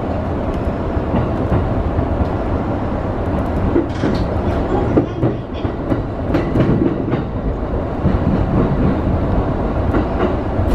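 JR East E231-series electric train running at speed, heard from the driver's cab: a steady rumble of wheels on rail with irregular clicks and knocks as the wheels pass over rail joints and track.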